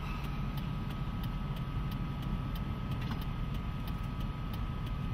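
Steady low rumble of a vehicle running, with a faint steady high tone and scattered sharp ticks over it.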